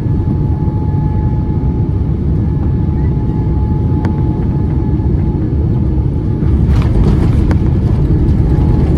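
Boeing 787-9 Dreamliner cabin noise during the landing phase: a steady low rumble with a faint thin whine over it, growing louder and harsher about six and a half seconds in.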